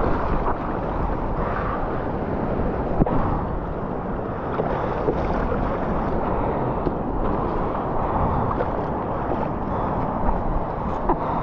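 Wind buffeting an action camera's microphone over shallow surf washing around the legs and board, a steady rushing with a few small knocks or splashes, one about three seconds in and a couple near the end.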